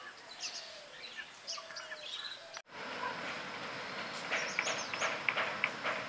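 Small birds chirping and tweeting over outdoor background noise. The sound drops out for an instant about two and a half seconds in, and the chirping after it is busier, with quick runs of short chirps.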